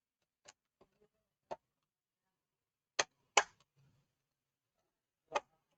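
Scattered sharp clicks and taps of tools and plastic parts while a laptop is being taken apart, about seven in all, with the loudest pair about three seconds in.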